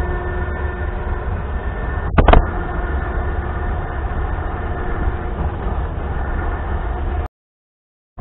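A motor running steadily at an even pitch, with a sharp double clank about two seconds in. The sound cuts off abruptly near the end.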